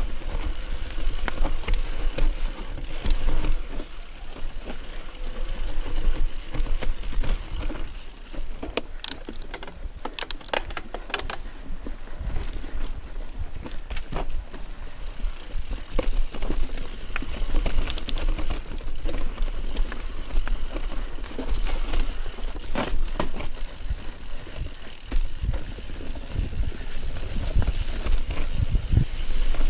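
Mountain bike riding fast down a rocky, leaf-strewn trail, heard from a camera mounted on the handlebars: a continuous rattle and rumble of tyres, frame and drivetrain over rough ground, with sharp knocks from rocks and roots now and then.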